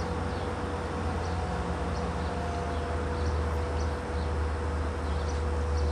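Distant LIRR DM30AC diesel locomotive leading the Cannonball, running at restricted speed as it approaches: a steady low rumble that grows slightly louder, with a steady hum over it. Faint high bird chirps come through now and then.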